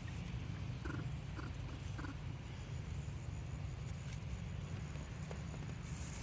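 Three short, high monkey calls, about half a second apart, starting about a second in, over a steady low rumble.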